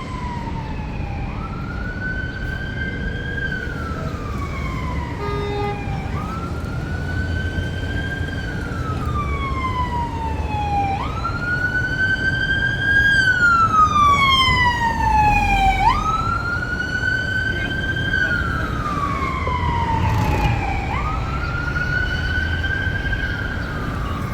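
Emergency vehicle siren in a slow wail: five cycles, each a quick rise followed by a long falling sweep, repeating about every five seconds. It is loudest midway through, over a steady low rumble of city traffic.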